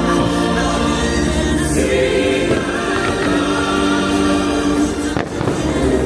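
Fireworks-show soundtrack music with a choir singing long held chords.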